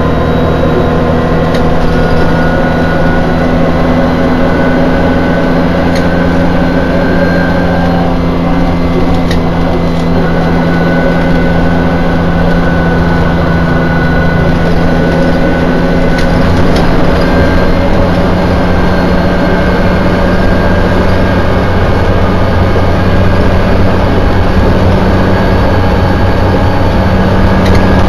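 Cummins LTA10 inline-six diesel of a Dennis Dragon double-decker bus, heard from inside the passenger cabin, running steadily under way over road noise. The engine note shifts a little about two thirds of the way through, and the sound grows slightly louder near the end.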